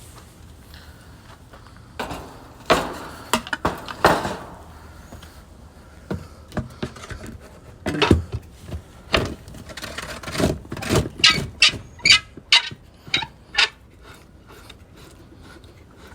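Hard objects knocking and clattering: scattered thunks early on, then a quicker run of sharp clicks and knocks, about three a second, in the second half.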